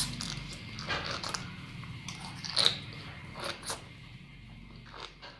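Close-up biting and chewing of sea grapes (Caulerpa lentillifera seaweed), with about six sharp, crisp clicks as the beads are bitten.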